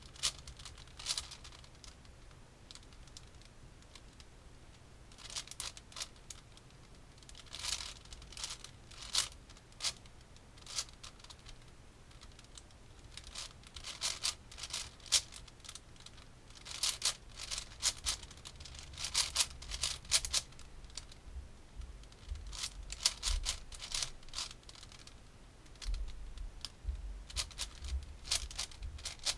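Plastic Rubik's-type speedcube being turned by hand: bursts of rapid clicking and scraping layer turns, broken by short pauses.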